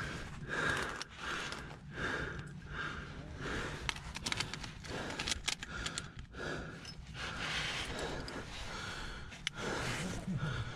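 A climber breathing hard while struggling up a chimney with a pack on: a steady run of heavy breaths, about one a second. A few light clicks come near the middle.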